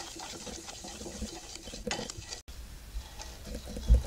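Sugar syrup bubbling faintly in a stainless steel kadai as a wooden spatula stirs it, with soft scrapes and a low knock near the end; the syrup is being boiled toward one-string consistency.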